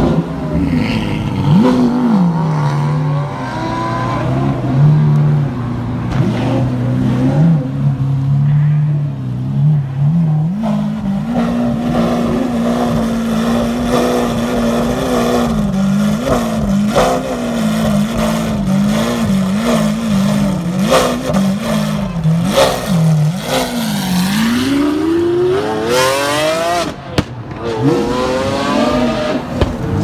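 Lamborghini Aventador SVJ's 6.5-litre V12 through an aftermarket Ryft exhaust, idling loudly with repeated short throttle blips, then a long rising rev about five seconds from the end.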